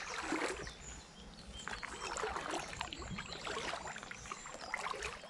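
Paddle strokes in calm river water from an inflatable canoe: splashing and dripping that swells and fades with each stroke.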